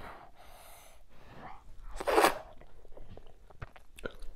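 Close-miked eating sounds of a person eating fufu with okra soup by hand. A soft breathy hiss comes first, then one loud breathy burst about two seconds in, then small sharp mouth clicks of chewing near the end.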